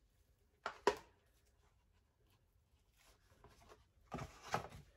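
A plastic deli-meat package crinkling and clicking as it is handled and thin ham slices are pulled out: two sharp crackles about a second in, a few faint ticks, then a louder run of rustling near the end.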